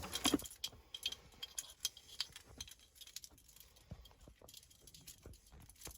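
Faint, scattered clicks, clinks and light rattles of small parts handled by hand: the kit's LED wiring looms and plastic trim pieces being sorted through.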